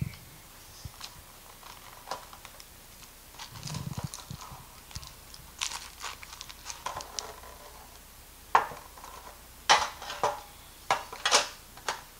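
Foil booster-pack wrappers crinkling and rustling as they are lifted out of a metal collector's tin with a plastic tray insert, with scattered clicks and several sharp knocks from the tin and packs being handled, most of them in the second half.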